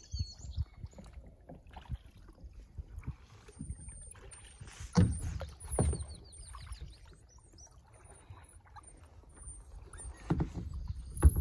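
Kayak paddling: paddle blades dipping and splashing in calm water, with a few sharp knocks about five seconds in and again near the end.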